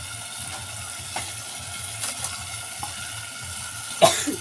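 Onion-and-chilli masala gravy sizzling and bubbling in a pan over a wood-fired chulha, with a few faint clicks and one sharp clack near the end.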